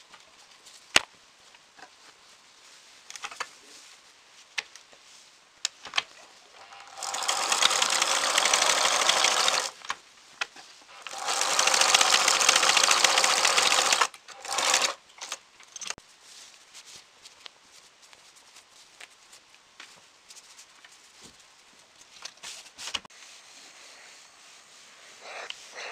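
Electric sewing machine stitching fabric. It runs in two steady bursts of about three seconds each, starting about seven seconds in, with a short third burst right after, and a few light clicks between.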